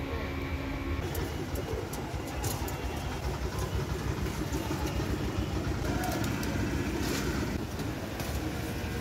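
A steady low outdoor rumble with scattered light rustles and snaps of leaves and stems as greens are handled.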